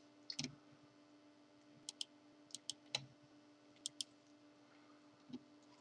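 Faint, scattered clicks of a computer mouse, some in quick pairs like double-clicks, over a faint steady hum.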